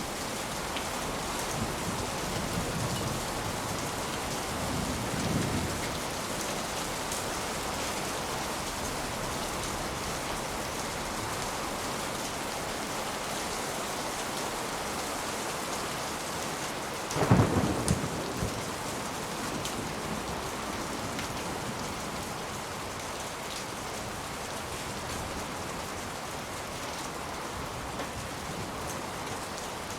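Steady rain falling, with low rolls of distant thunder in the first few seconds and a louder thunder rumble a little past halfway.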